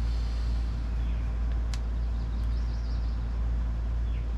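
Steady low hum, with a couple of faint clicks about two seconds in.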